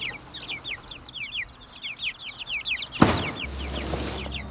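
A brood of young chicks peeping without pause: many quick, high peeps, each falling in pitch and overlapping. About three seconds in there is a sharp knock, then a low rumble.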